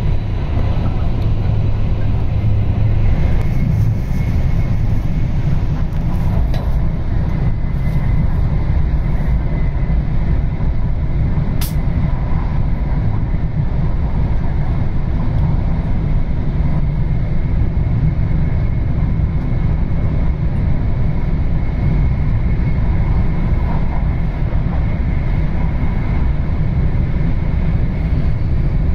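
Running noise inside the lower-deck cabin of an E4 Series MAX Shinkansen at speed: a steady, loud low rumble of wheels on track with a faint high whine over it. One sharp click about twelve seconds in.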